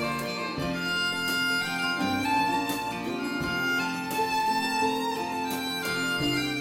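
Instrumental break: acoustic guitar accompaniment under a sustained, melodic lead line of held notes.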